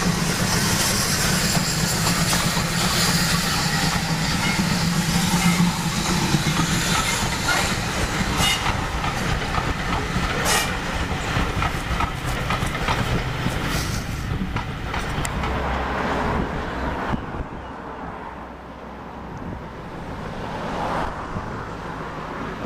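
PKP 4015 Karel steam tank engine and its coaches running past, the wheels clicking over the rail joints as the carriages go by and the sound fading. Near the end the locomotive is heard more faintly, working toward the camera from a distance.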